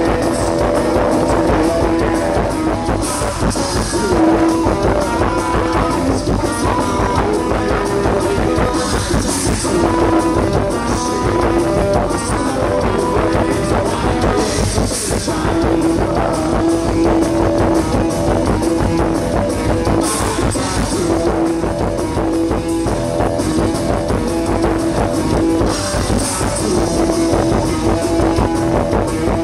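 Loud band music with drums and a held note that comes back every few seconds.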